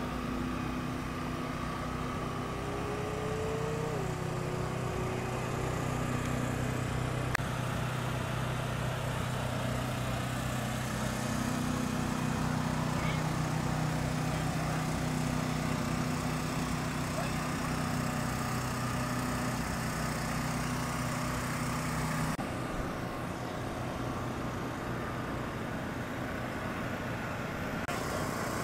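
Engine idling steadily, a low even hum under outdoor background noise. The hum stops abruptly about 22 seconds in, leaving a broader rumble.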